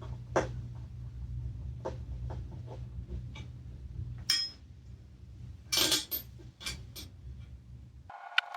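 Small metal screws and parts being handled and cleaned, giving scattered light clicks and clinks, with a cluster of them about six seconds in. A steady low hum runs underneath and cuts off abruptly about eight seconds in.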